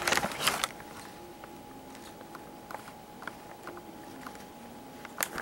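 Plastic action figures and clear plastic packaging being handled: a short flurry of rustling and clicks at the start, then faint light ticks, and a single sharp click near the end.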